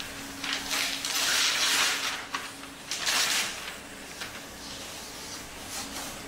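Large sheets of drawing paper rustling in two loud bursts, the first starting about half a second in and lasting over a second, the second shorter about three seconds in, with short scratchy strokes between. A faint steady hum runs underneath.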